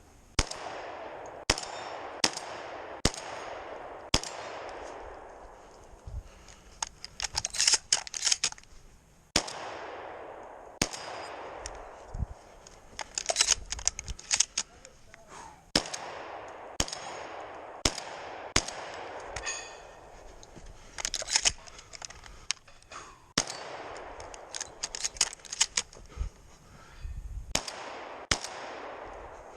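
Shotgun firing a long string of shots, mostly about a second apart, each followed by a short fading echo. Between groups of shots come quick runs of sharp clicking and clattering.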